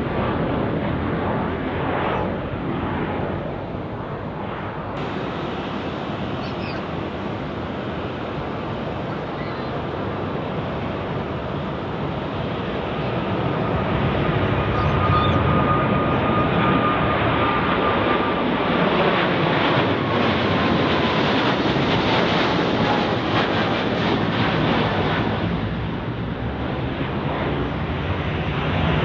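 Jet airliner's engines: a steady rushing roar that grows louder past the middle, with a faint whine slowly falling in pitch.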